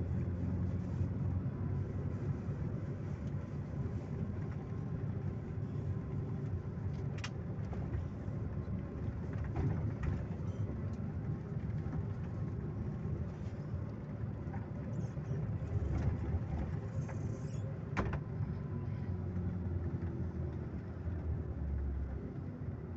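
Coach bus engine and road noise as heard from inside the passenger cabin while driving: a steady low rumble, with a couple of sharp clicks about seven and eighteen seconds in.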